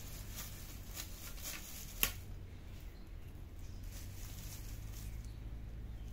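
Plastic strips of a stick-mounted cat toy crinkling and rustling faintly under a cat's paws during the first two seconds, with one sharp click about two seconds in, over a steady low hum.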